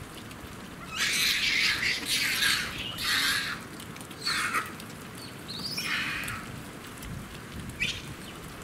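Japanese macaques screaming: several harsh, high outbursts, the longest starting about a second in and lasting over two seconds, with shorter ones around four, six and eight seconds in.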